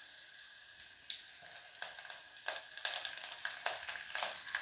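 A cumin-and-garlic tempering sizzling in hot oil, with crackles and small spits growing livelier about a second and a half in, as fresh chopped coriander leaves are dropped into the oil.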